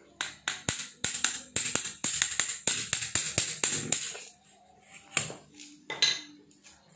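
Quick metal clicks and scraping as a steel blade works against a steel shaft inside a pillow block bearing, for about four seconds, followed by a few separate metal knocks.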